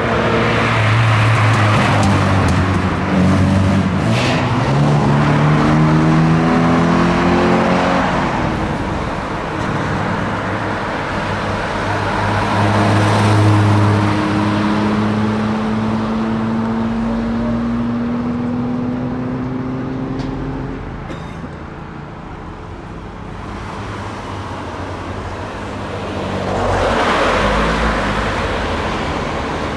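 Italian cars driving off under acceleration. Over the first eight seconds an engine note climbs in pitch. A second engine pulls away with a slowly rising note around the middle. Near the end a car passes close by.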